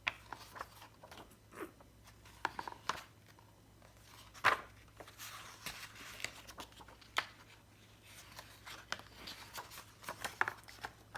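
Quiet paper rustling with scattered light clicks and taps, as of a picture book being handled and its pages turned.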